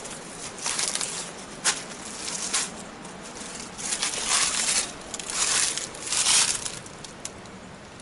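Footsteps through dry fallen leaves and stony ground: about six rustling, crunching steps at an uneven pace.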